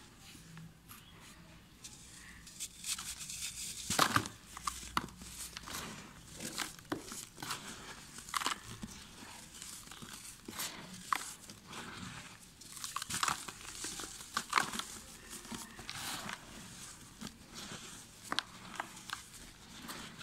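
Dry red dirt blocks crumbled by hand into a tub of loose powdered dirt: irregular gritty crunches and crackles, the loudest about four seconds in.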